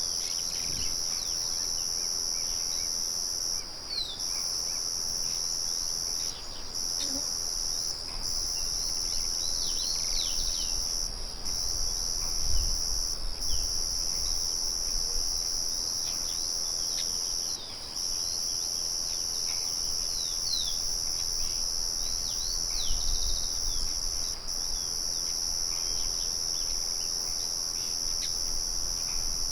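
Crickets trilling steadily in a high, continuous chorus that breaks off briefly every few seconds, with many short bird chirps over it. A low rumble swells a couple of times, loudest around the middle.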